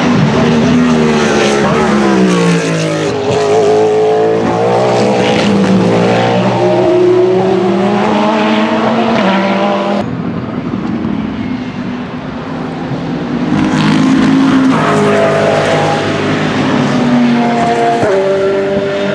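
Endurance race cars passing at speed, their engines falling in pitch under braking and then climbing in steps through the gear changes. About halfway the sound changes abruptly, dips briefly, and another car comes up and goes up through its gears.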